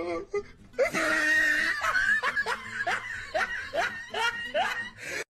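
Someone laughing hard: a breathy start about a second in, then a string of short 'ha' bursts, about three or four a second, that fade out near the end.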